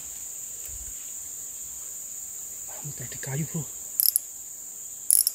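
A steady high-pitched insect drone from the surrounding forest, with a brief low voice sound about three seconds in and two short sharp high-pitched bursts near the end.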